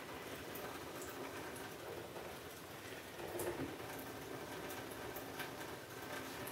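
Faint steady trickle and patter of a thin stream of tap water falling into a stainless-steel kitchen sink, broken up by a kitten batting at the stream with its paw.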